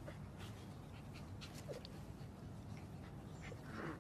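Faint sounds from a husky puppy lying on its back: soft panting and a brief faint whimper partway through, over a low steady hum.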